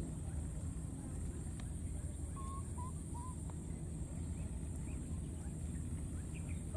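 Three short chirping calls in quick succession about halfway through, over a steady low rumble.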